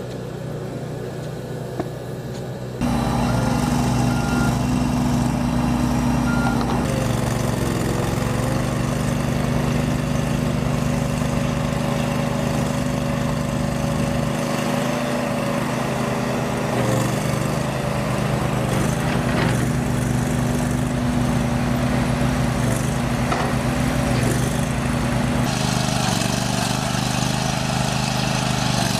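Diesel engine of John Deere earthmoving equipment running steadily. It gets suddenly louder about three seconds in and then holds an even pitch, with a higher tone wavering slightly above it.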